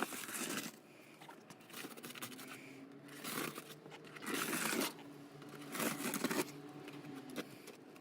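Repeated scratchy, rustling noises in about five short bursts over a faint steady hum.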